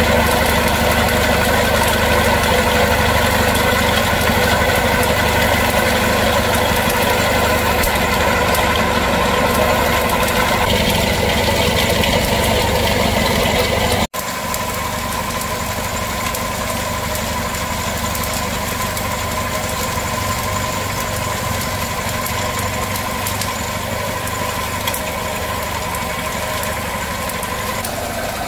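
Rice-puffing extruder machine running steadily with a constant mechanical hum. About halfway through, the sound drops out for an instant and comes back a little quieter.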